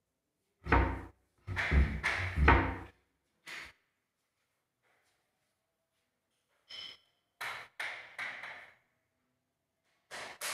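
A run of dull thumps and knocks at irregular intervals, the heaviest about two seconds in, followed by a lighter cluster of knocks with a brief high ring later.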